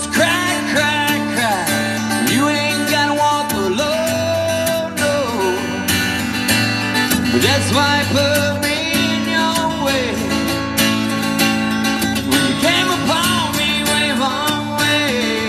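A man singing into a microphone while strumming an acoustic guitar: a live solo performance, with long held, gliding vocal notes over steady strummed chords.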